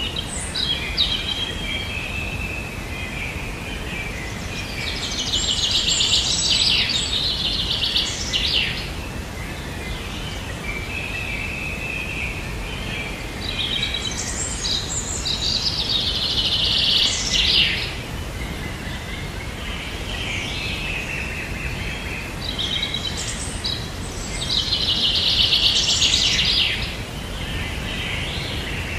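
A songbird singing a trilling phrase that repeats about every nine to ten seconds, with softer chirps between, over a steady background hiss.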